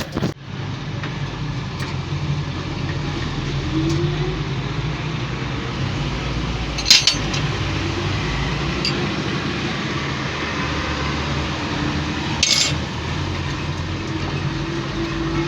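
A steady low engine drone, with two sharp metallic clinks of tools on metal about seven seconds in and again about twelve seconds in, as the road roller's diesel lift pump is taken apart.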